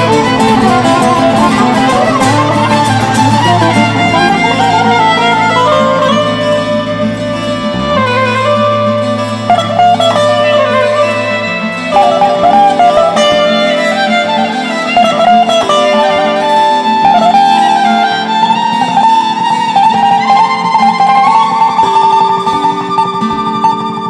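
Music playing: a melody moving over sustained held notes, getting a little quieter near the end.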